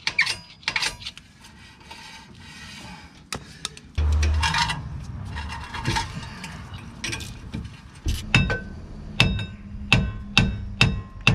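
Hammer blows on the steel rear brake disc of a Peugeot Boxer van, each strike ringing metallically. The blows come in a quick series, about two a second, over the last few seconds.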